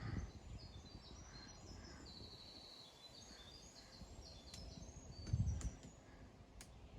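A songbird singing a long string of high, rapid trills and chirps. A few faint sharp clicks sound in the second half, and there is a low thump about five and a half seconds in.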